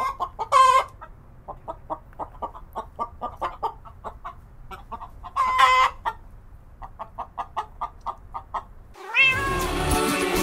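A kitten mewing twice, a short high mew about half a second in and another around the middle, with a run of quick, short chirps, about four or five a second, between and after them. Background music stops at the start and comes back near the end.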